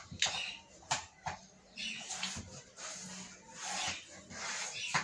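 Scrubbing at a carved wooden bed headboard: rough, rasping strokes in short spells, with a few sharp knocks in the first second and a half.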